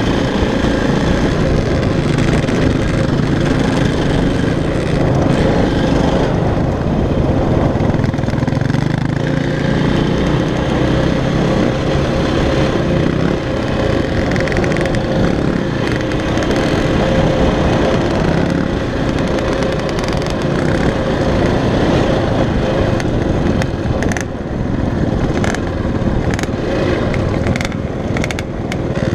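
KTM dirt bike engine running steadily under way, heard from the rider's own bike, with a few short sharp knocks near the end.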